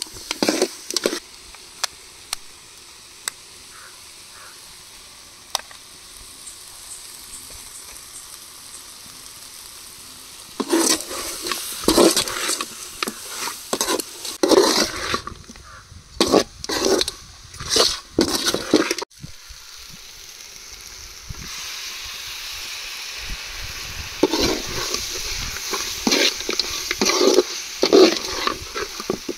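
Rabbit meat frying in a pan with onion and tomato: a steady sizzle with a few clicks for the first ten seconds or so, then loud, irregular strokes of a spoon stirring and scraping the pan, in one long bout and again near the end, with the sizzle running beneath.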